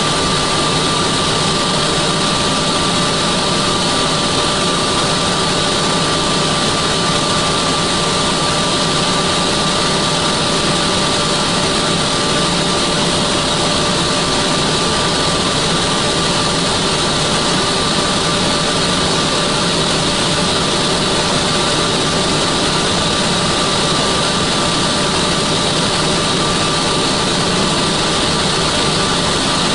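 Cockpit noise of an NH90 (Hkp 14) twin-turbine helicopter in cruising flight: a steady, loud rush of turbine and rotor noise with a constant whine held at one pitch.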